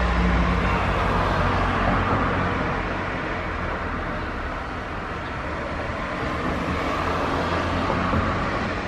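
Road traffic noise: a passing vehicle's low engine hum fades away in the first two seconds, leaving a steady rush of distant traffic.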